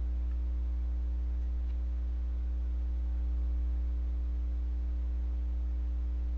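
Steady electrical mains hum in the recording: a low, even buzz with a ladder of fainter overtones above it, with no other sound on top.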